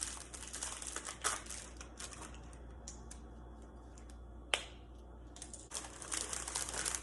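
Plastic fidget toys handled and played with: a run of small clicks and crackles, with one sharp click about four and a half seconds in.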